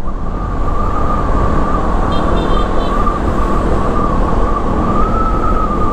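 Honda ADV150 scooter running on the road: a steady rumble of engine and wind noise with a steady, slightly wavering high whine, and three short high beeps a little past two seconds in.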